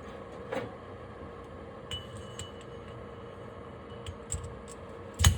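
Light metal clinks and ticks as a differential pinion bearing and its steel shim pack are handled onto the pinion shaft, with one sharp metal knock near the end as the bearing goes on.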